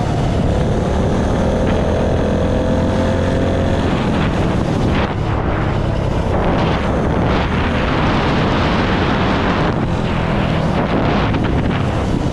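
Honda GX160 single-cylinder four-stroke engine on a mini bike running under load while it is ridden, with heavy wind noise on the microphone. The engine pitch shifts slightly in the first few seconds, then the engine is buried under wind rush.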